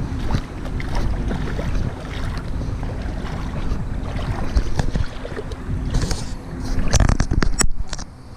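Jon boat moving on the water under a steadily humming electric trolling motor, with wind rumbling on the microphone. A quick cluster of knocks comes about seven seconds in, then the sound briefly dips.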